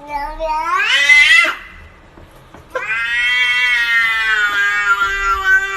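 A cat giving two long, drawn-out yowling meows. The first rises in pitch and breaks off about a second and a half in; the second starts about three seconds in and is held long at a steady, slightly falling pitch.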